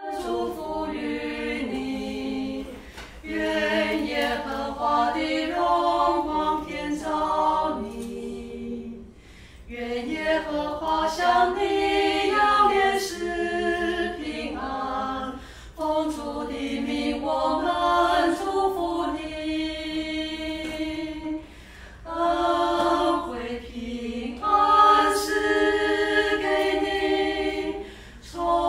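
Small group of four women singing a cappella in harmony, in phrases with short breaks between them.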